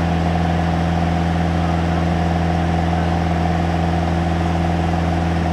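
Light touring aircraft's piston engine and propeller droning steadily in cruise, heard from inside the cabin.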